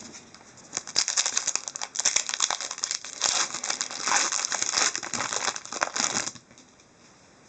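Foil hockey card pack wrapper being crinkled and crumpled in the hands: a dense run of crackles that starts about a second in and stops abruptly about six seconds in.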